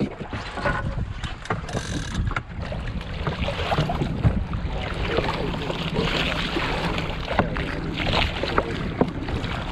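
Water rushing and splashing along the wooden hull of a sailing skiff under way, with wind buffeting the microphone and a few short knocks.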